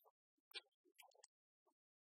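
Near silence, broken by a few faint, brief sounds.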